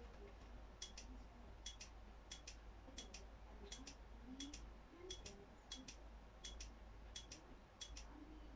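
Faint, light double clicks repeating about every two-thirds of a second, like a ticking mechanism.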